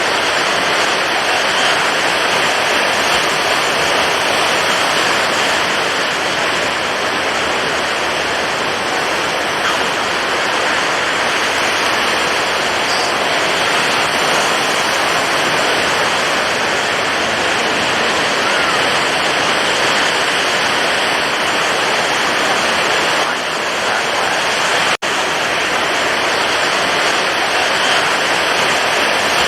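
Heavy surf of high, stormy ocean waves, heard as a loud, continuous wash of water with no separate wave crashes standing out. The sound cuts out for an instant about 25 seconds in.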